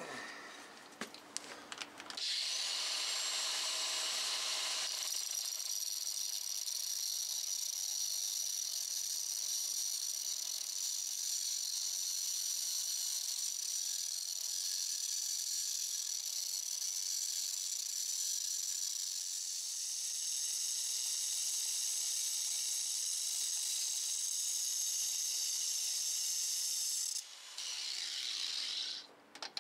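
Angle grinder with a cut-off wheel cutting through the steel mounting bolts of a wheel hub assembly to shorten them. After a few light clicks it starts about two seconds in with a steady, high-pitched whine, stops near the end, runs again briefly and cuts off.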